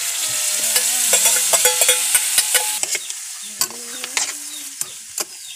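Chicken pieces sizzling as they hit hot oil in a wok, with a metal spatula clicking and scraping against the pan as they are stirred. The sizzle is loudest in the first few seconds and dies down about halfway through.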